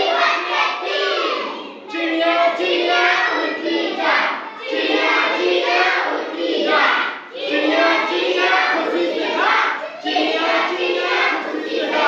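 A group of children singing a chanted rhyme together in repeated phrases about two to three seconds long, with short breaks between phrases.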